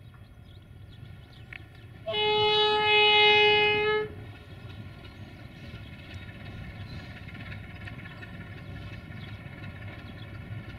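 Horn of an LDE2100 (060-DA) diesel-electric shunting locomotive sounding one steady note for about two seconds, starting about two seconds in. Throughout, the locomotive's Sulzer diesel engine runs as it moves slowly toward the listener, its rumble growing gradually louder.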